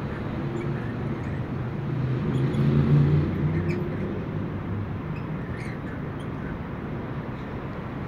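Street traffic rumbling below, swelling as a vehicle passes about three seconds in and then fading back, with a few faint short bird chirps.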